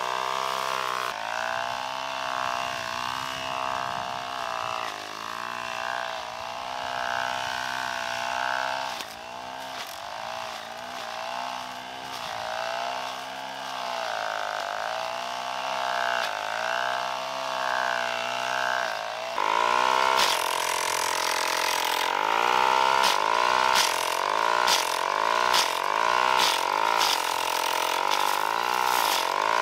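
A small engine running, its pitch dipping under load and recovering every second or two. The note changes and grows louder about two-thirds of the way through.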